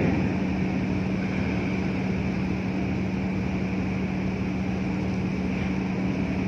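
Steady low drone of ship's machinery: a constant hum over an even rumble, unchanging throughout.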